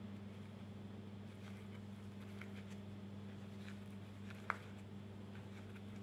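Faint soft ticks of a crochet hook working yarn through tight single crochet stitches, with one sharper click about four and a half seconds in, over a steady low hum.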